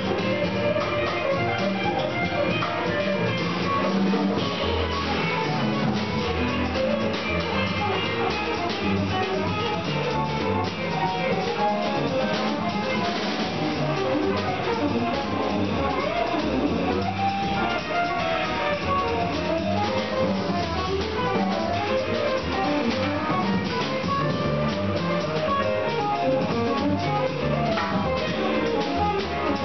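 Small jazz group playing live: a hollow-body electric guitar plays a moving single-note line to the fore, over double bass, stage piano and drum kit.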